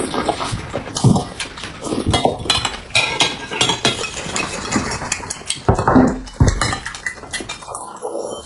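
Cutlery and dishes clinking at a meal: many quick, irregular clicks and knocks, with a few heavier knocks about a second in and near the six-second mark.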